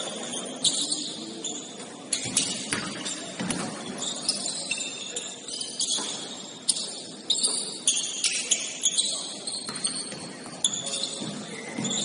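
Basketball shoes squeaking on a gym floor during play: many short, high-pitched chirps scattered throughout, mixed with scattered knocks.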